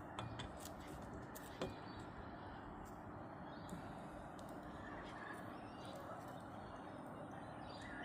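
Faint steady outdoor background noise, with one sharp knock about one and a half seconds in and a few short, faint chirps in the second half.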